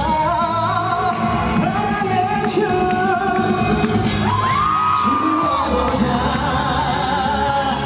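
Live pop song: a singer's voice over a backing track with a steady beat, with one long held note about halfway through.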